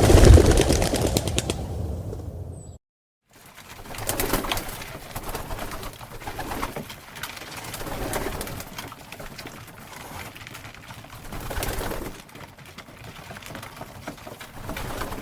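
A loud sudden sound fades out over about three seconds. After a short break, birds call with the sound swelling and easing roughly every four seconds.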